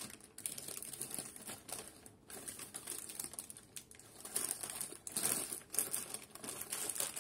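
Hands rummaging through small plastic Mega Construx figures and parts, with irregular rustling and light clicking of plastic on plastic.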